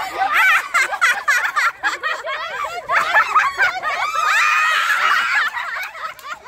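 Several women laughing and shrieking together, their voices overlapping. About four seconds in, a long, high-pitched squeal is held for over a second.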